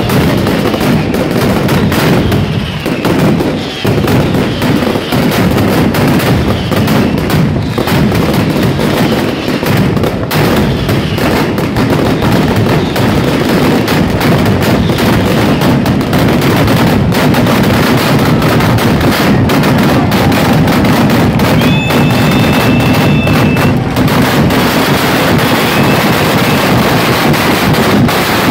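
A daytime traca, a long ground-level chain of firecrackers, going off in a dense, continuous rattle of rapid bangs, loud throughout.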